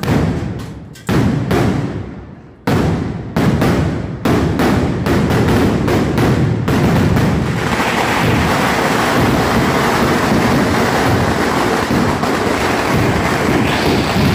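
Firecrackers going off: single loud bangs that come quicker and quicker, then from about seven seconds in merge into a continuous dense crackle, as from a long hanging string of firecrackers burning.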